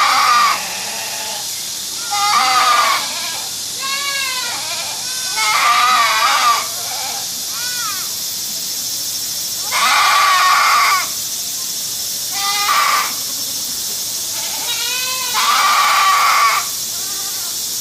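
Goats bleating: about seven or eight separate wavering cries, each up to about a second long and a few seconds apart, over a steady hiss.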